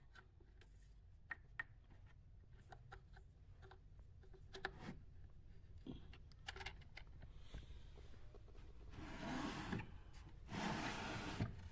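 Quiet handling noise: small clicks and rubbing as speaker wires are pushed into the binding posts of a homemade plywood speaker box, with a stretch of louder rustling near the end. A faint low hum runs underneath.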